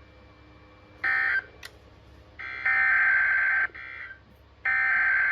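Emergency Alert System SAME digital data bursts, a raspy two-tone modem screech. A short burst comes about a second in, then two longer bursts of about a second each with a second's gap between them, the pattern of the data header that opens a new alert.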